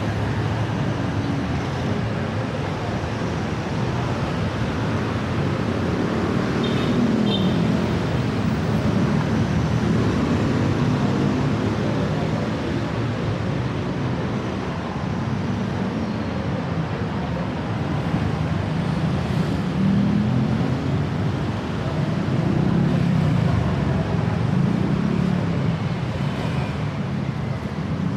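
Busy city road traffic: cars, vans and motorbikes passing, their engines rising and falling in pitch as they go by over a steady rumble. Two short high beeps about seven seconds in.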